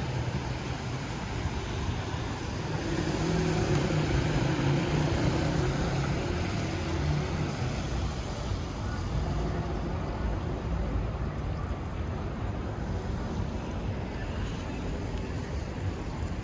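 Wet city street ambience during rush hour: a steady hiss of rain and tyres with the low hum of passing vehicle engines and a faint murmur of voices.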